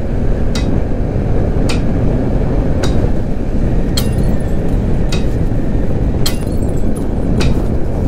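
Motorcycle riding at road speed: steady wind and engine noise, with a sharp click about once a second.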